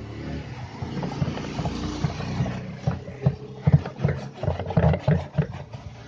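Liquid descaler pouring from a bottle into a plastic washing-machine tub, a steady splashing hiss. About three seconds in it gives way to irregular knocks and rubbing as a hand scrubs the tub wall.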